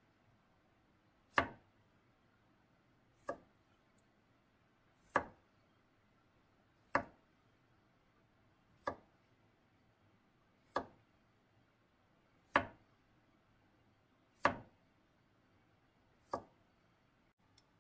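A chef's knife slicing a cucumber into thin rounds on a plastic cutting board: nine sharp, evenly spaced chops, about one every two seconds.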